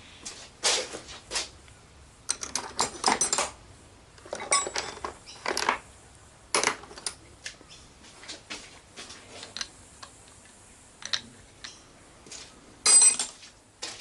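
Metal tools and engine parts clinking and clattering in short irregular bursts of knocks and rattles, the loudest cluster near the end.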